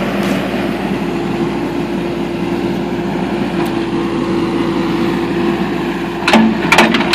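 Backhoe engine running steadily as the operator works the machine, with a few short knocks near the end.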